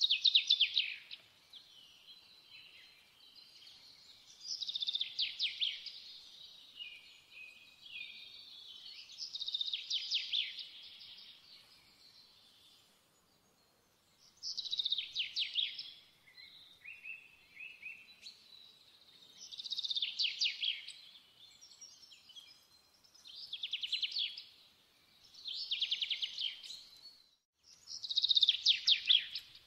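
A songbird singing short, rapid trilled phrases every few seconds, with softer chirps between them.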